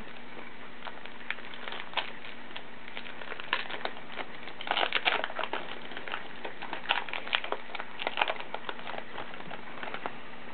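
Crinkling and crackling of a baseball card pack's wrapper being torn open and handled, in irregular bursts that are densest about halfway through and again near the end.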